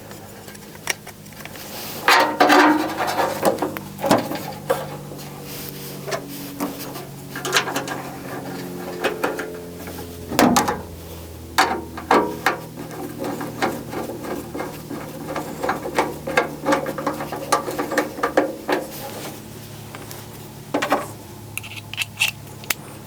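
Small clicks, knocks and scraping from handling tools and metal parts inside a furnace's sheet-metal blower compartment as the wires are pushed back onto the blower's run capacitor, scattered through the whole time over a faint steady hum.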